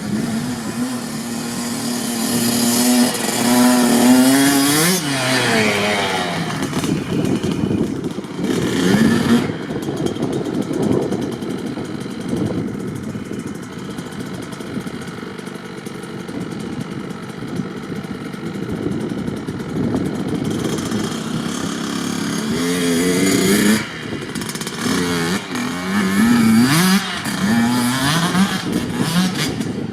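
Kawasaki KX65 dirt bike's 65 cc single-cylinder two-stroke engine being ridden, its note climbing as it revs up about four seconds in, then running on before a string of short blips of the throttle near the end.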